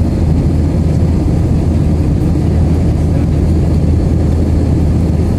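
Steady cabin noise of an Airbus A320 in flight, heard from a window seat over the wing: an even, deep rumble of jet engines and airflow.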